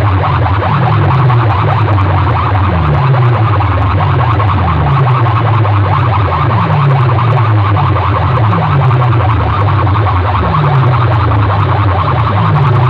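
Loud DJ music blasted through a rig of metal horn loudspeakers, driven by a repeating bass tone that slides downward in pitch about one and a half times a second.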